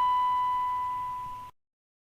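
Steady 1000 Hz electronic beep tone, sounding like a sensor beep. It is the beep of the cartoon ATI siren, slowly fading and then cutting off abruptly about a second and a half in.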